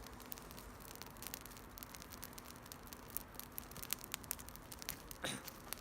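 Wood campfire crackling: scattered, irregular sharp pops and snaps, with a short falling sound near the end.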